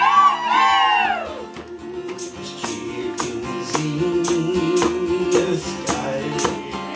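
Live folk band music. A singing voice slides through the opening second or so, then gives way to an instrumental stretch of jingling hand percussion struck about twice a second over a held low note.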